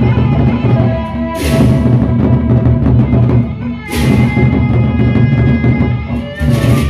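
Sasak gendang beleq gamelan playing: large barrel drums beat a steady pulse under held gong tones, with a cymbal crash three times, about every two and a half seconds.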